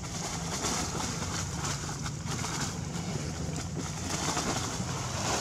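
Monkeys moving through dry leaf litter, the leaves rustling and crackling in short bursts over a steady low outdoor rumble and hiss.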